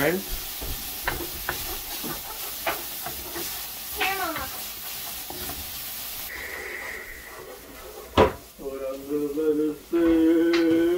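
Wooden spoon stirring and scraping grated coconut as it parches in a hot aluminium pot, with a steady sizzle and small scraping clicks; the sizzle cuts off about six seconds in. Then a single sharp knock, followed by voices.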